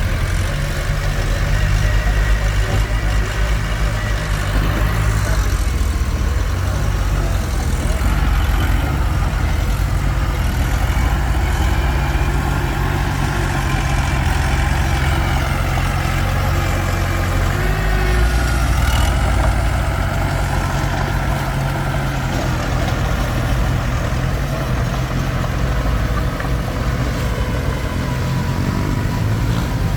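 Komatsu D21P bulldozer's diesel engine running steadily under work, its pitch shifting slightly a few times as the load changes.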